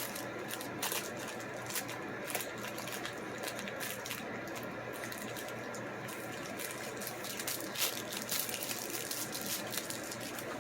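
Packaging being handled and unwrapped, crinkling and rustling with many small irregular clicks over a steady background hiss.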